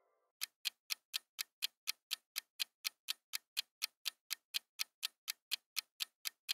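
Countdown timer ticking sound effect: a clock-like tick, about four a second, starting about half a second in.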